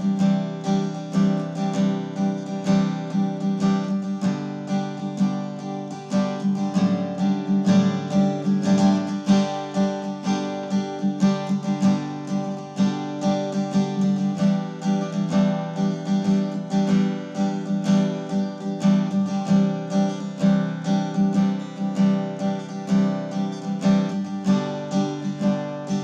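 Background music: acoustic guitar playing with a regular strummed and plucked rhythm.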